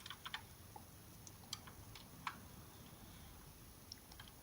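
A few faint, irregular clicks and taps of a toy model car being handled and turned over in the hands, otherwise very quiet.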